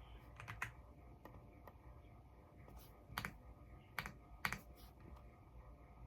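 Keystrokes on an EPOMAKER x Aula F99 mechanical keyboard with Graywood V3 switches: slow, irregular typing, with a few louder presses about three to four and a half seconds in.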